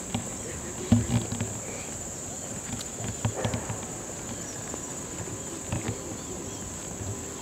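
Steady high-pitched drone of insects, with scattered low thumps, the loudest about a second in.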